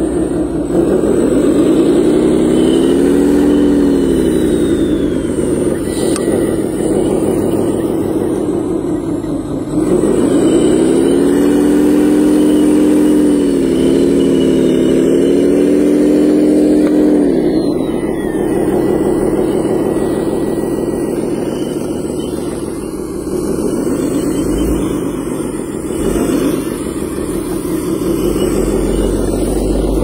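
Radio-controlled model wheel loader running as it drives and pushes dirt. Its steady motor sound rises in pitch three times and falls back, briefly a few seconds in, for several seconds from about ten seconds in, and briefly again near the end.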